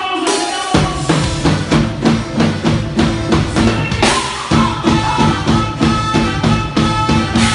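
Live band music driven by an acoustic drum kit played with sticks: a steady beat of kick, snare and cymbal hits over bass and sustained pitched instruments. The full band comes in under a second in. About four seconds in there is a big accent and a short break in the bass, then the groove resumes.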